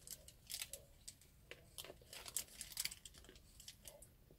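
Paper sandwich wrapper crinkling quietly in short, irregular crackles as it is handled.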